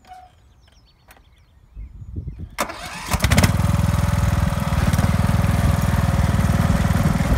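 Husqvarna ride-on mower's engine being started: a short uneven cranking from about two seconds in, catching a little later, then running loud and steady.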